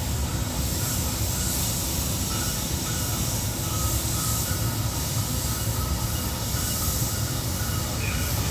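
Ship's diesel engine running steadily during slow berthing: an even low rumble with a steady hiss over it.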